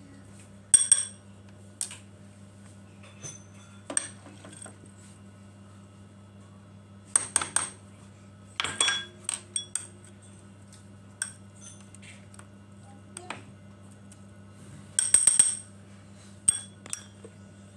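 Metal spoon clinking and scraping against glass bowls as chopped chocolate is scooped into hot milk for ganache. Scattered clusters of sharp, ringing clinks come with quiet gaps between them, over a steady low hum.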